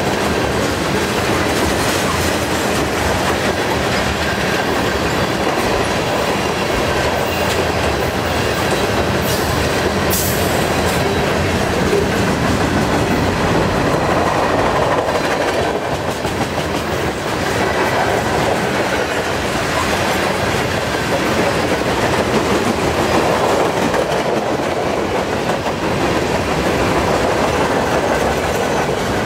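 Freight train of tank cars and boxcars rolling steadily past close by: continuous noise of steel wheels on rail with clickety-clack over the joints.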